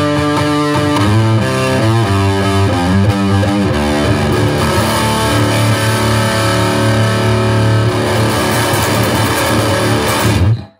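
Gibson Les Paul Studio electric guitar, tuned down a whole step, playing a blues riff: a run of quick changing notes for the first few seconds, then a long low chord left ringing, which cuts off suddenly near the end.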